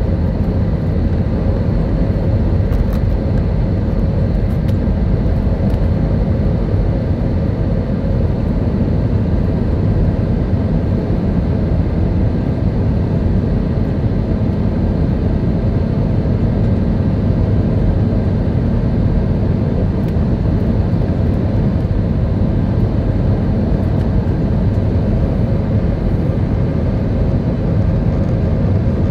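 Jet airliner's engines at climb power with the rush of airflow, heard inside the cabin just after takeoff: a steady, dense low rumble with a faint constant hum above it.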